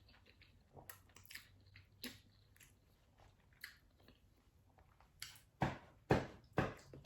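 Close-up chewing of a mouthful of black bean noodles. Sparse faint mouth clicks come first, then from about five seconds in a run of loud, regular chews about two a second.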